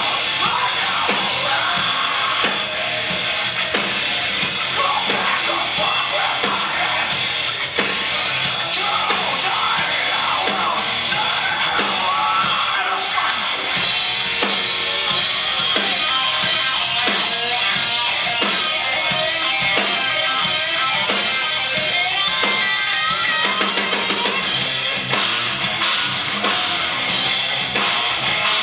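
Live rock band playing loud: electric guitar, bass and drum kit, heard from among the audience in the hall.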